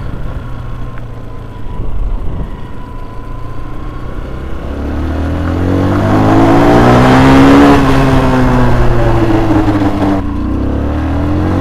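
TMEC Enduro 125's single-cylinder engine pulling along the road with wind noise on the helmet camera; about halfway in the engine note climbs in pitch and gets louder, peaks, then eases back down over a few seconds.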